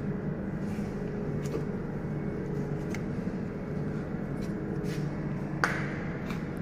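Steady mechanical hum of cold-room refrigeration equipment just switched on and running, with a sharp click about five and a half seconds in.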